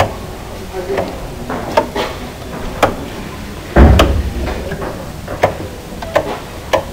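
Toggle light switches clicking as they are flipped one after another, about a dozen sharp clicks at uneven intervals. These are three-way (staircase) and intermediate switches controlling lamps from three places. A heavier thump comes about four seconds in.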